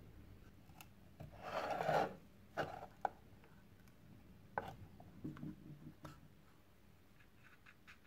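An old wooden drawer being pried apart with a flat metal blade. A short scraping rub of wood comes about a second and a half in, followed by a few scattered sharp clicks and knocks as the joints shift.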